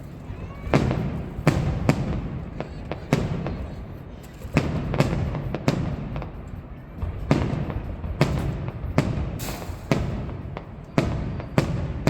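Aerial fireworks shells bursting high overhead: a rapid, irregular string of sharp bangs, several a second at times, with a low rumbling echo between them.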